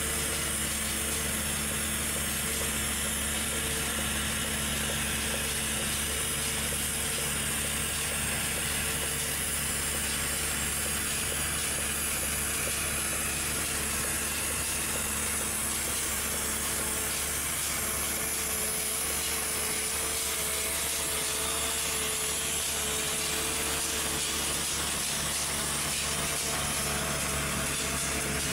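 Road-marking truck at work laying a rib line: its engine hums steadily under a continuous hiss from the line-applicator equipment. A higher hum joins about two-thirds of the way through.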